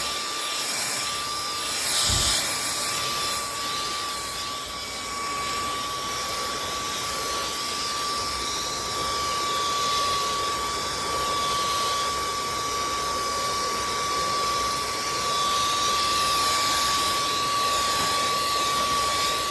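Dyson cordless stick vacuum running with a soft dust-brush attachment, a steady high whine over a rushing hiss, the hiss wavering slightly as the brush is worked over a dusty table.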